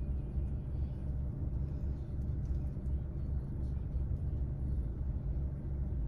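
Steady low rumble of a car idling, heard from inside its cabin.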